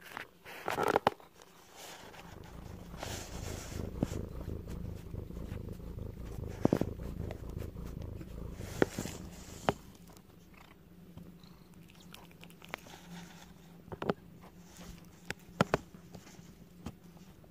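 Domestic cat purring close to the microphone, a low, pulsing rumble that fades in the second half, with a few sharp clicks and knocks.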